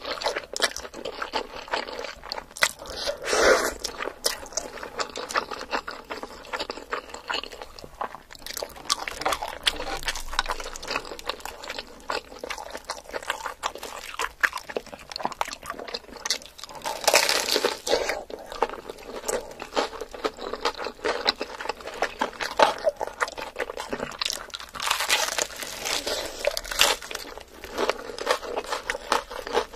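Close-miked eating sounds: crunching bites into crispy fried chicken drumsticks and chewing, with louder bursts of crunching a few times.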